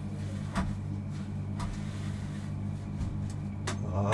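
Steady motor hum of commercial kitchen equipment, with a few light clicks of a metal utensil against the flat-top griddle.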